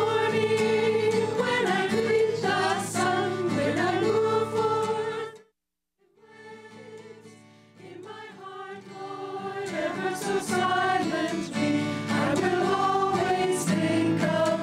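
Mixed choir singing a hymn-like song, with acoustic guitar accompaniment. About five seconds in, the music cuts off to silence for half a second, then comes back softly and builds to full volume again.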